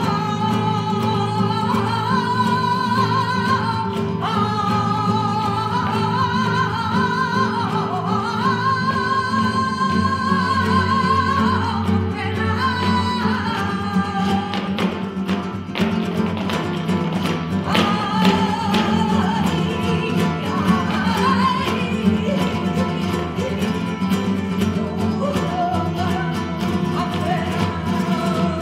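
Live flamenco seguiriya: two flamenco guitars play under a sung line that wavers and bends in pitch through about the first half. After that the singing drops away and sharp percussive strikes come in over the guitars.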